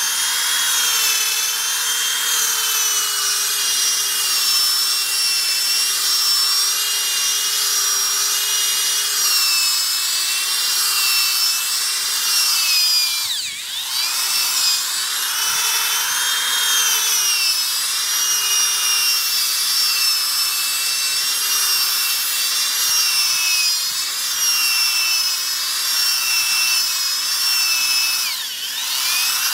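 Handheld electric buffer spinning a foam Powerball polishing ball against a boat hull, its motor whining steadily over the hiss of the pad rubbing in polish. The whine wavers with hand pressure and dips and recovers about halfway through and again near the end.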